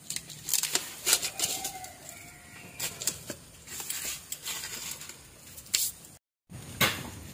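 Wood cooking fire crackling in irregular sharp snaps and clicks, with firewood being shifted by hand. The sound drops out completely for a moment about six seconds in.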